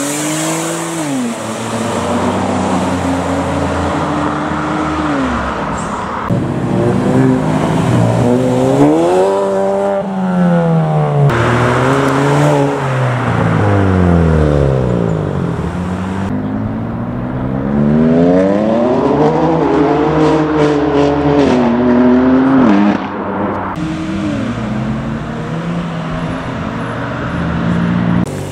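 Car engines revving hard and accelerating past, their pitch climbing and dropping over and over. The sound changes abruptly several times.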